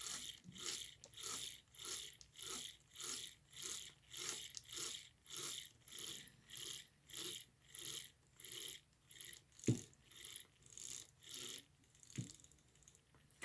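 Small gear train and wheels of a Lionel 221 toy locomotive being worked back and forth by hand, a rhythmic gear whirr about twice a second, spreading fresh oil into the axles. Two sharper knocks come near the end.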